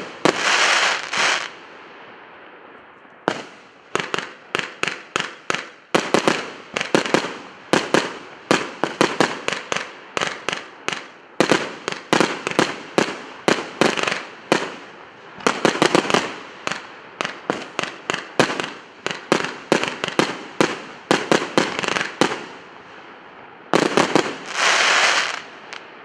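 A 180-shot compound firework cake (Emperor Fireworks Maximum Impact) firing: tubes go off in quick, uneven volleys, several bangs a second, with a spell of crackle at the start and a last crackling burst near the end.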